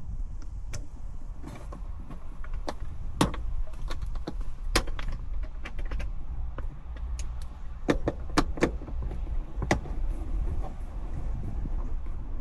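Irregular sharp clicks and knocks of tools and plastic interior trim as a grab handle is worked loose from an SUV's headliner, over a steady low rumble.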